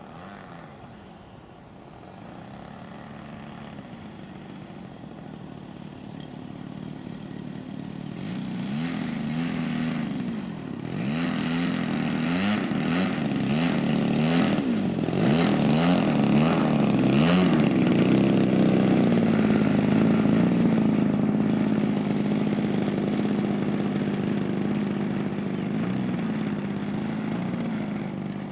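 Small single-cylinder two-stroke gasoline engine of a 30cc RC aerobatic plane. It grows louder as the plane comes in low, then revs up and down many times in quick throttle blips on the grass, and then runs steadily through the second half.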